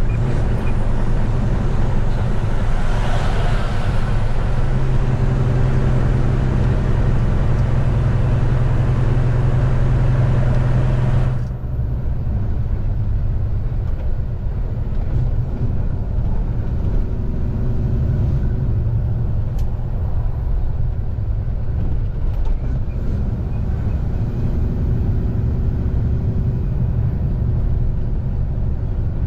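Semi truck's diesel engine running steadily under load with road noise while driving. About eleven seconds in, the higher hiss cuts off abruptly and the low engine drone carries on.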